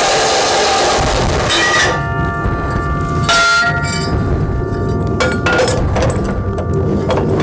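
Evolution Rage 2 saw cutting through steel frame stock, its cutting noise stopping about two seconds in. Then the steel rings with clear metallic tones and clinks and knocks as the saw stops and the cut pieces are handled.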